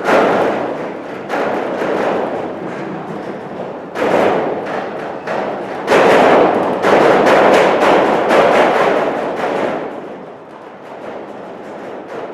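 Strong, gusty wind buffeting the microphone. It surges in waves, strongest from about six to ten seconds in, then eases.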